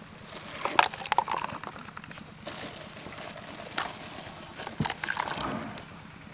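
Thin plastic cups clicking and knocking as they are handled, pulled apart and set on a wooden table, a few separate light taps spread through the moment.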